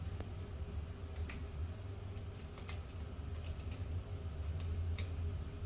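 A few light, scattered clicks and taps from hand work at the hinge screw holes, over a low steady hum.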